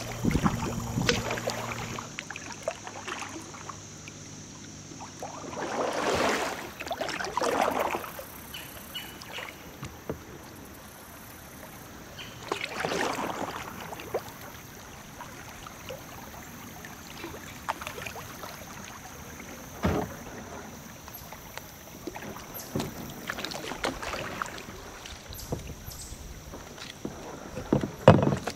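Kayak paddling on a river: paddle blades dipping and water rushing and lapping around the hull. Louder swishes of water come about six and thirteen seconds in, and a sharper splash near the end.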